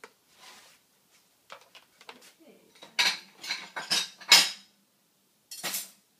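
Plastic toothbrush knocking and scraping against a plastic high-chair tray: a few light taps, then a cluster of loud clattering scrapes about three to four and a half seconds in, and one more near the end.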